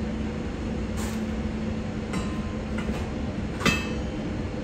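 Metal-on-metal clicks and clinks as a dough hook is fitted onto a commercial stand mixer's attachment shaft, with one sharp, ringing clink about three and a half seconds in. A steady low hum runs underneath.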